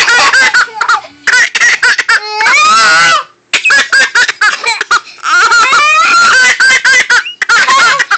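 Baby laughing hard and loud in several runs of rapid laughs, with short breaks between them.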